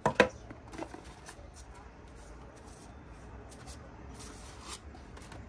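Unboxing a cardboard knife box: two sharp knocks right at the start as the box lid is handled and set down, then light handling and rustling of cardboard and a folded paper insert, with a longer paper rustle about four seconds in.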